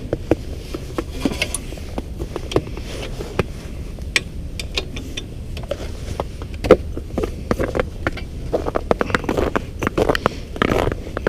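Irregular crunching and clicking footsteps on bare lake ice, over a steady low rumble.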